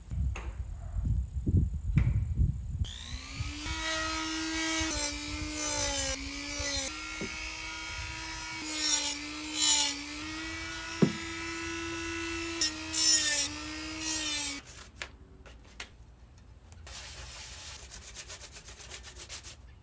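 Sanding a hard epoxy-coated piece: a small electric sanding tool runs with a steady hum, its pitch sagging briefly several times as it is pressed into the work, over loud scratchy grinding. After the motor stops, rapid scratchy sanding strokes continue more quietly.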